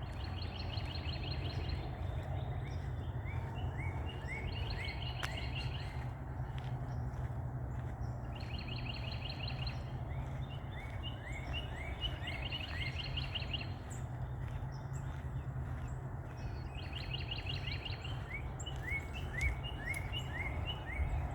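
A songbird singing, repeating a phrase every few seconds: a fast high trill and a quick run of short rising notes, over a steady low background rumble.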